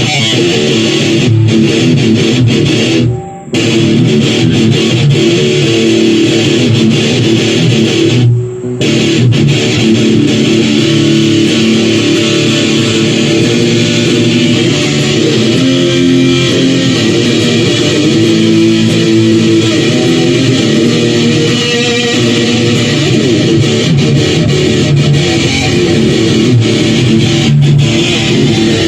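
Amplified electric guitar with bass playing loud, continuous music at a band's sound check, breaking off briefly twice, about three and eight seconds in.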